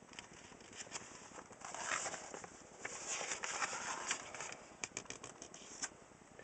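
Paper rustling with a few soft clicks as the pages of a picture book are turned.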